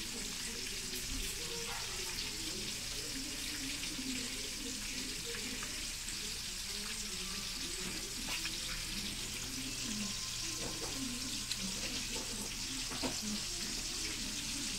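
A cat chewing and smacking on wet meat from a plastic bowl: small irregular wet clicks over a steady hiss.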